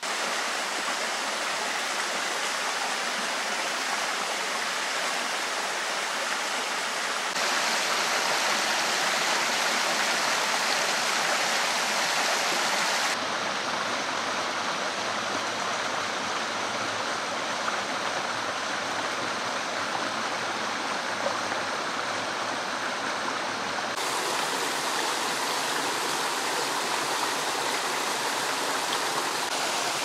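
Steady rushing of a stream, water spilling over a small stone weir into a pond. Its tone shifts abruptly a few times.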